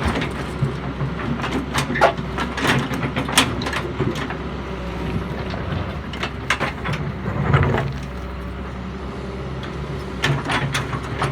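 Doosan excavator's diesel engine running steadily, with scattered sharp metallic knocks and clanks from the machine at work.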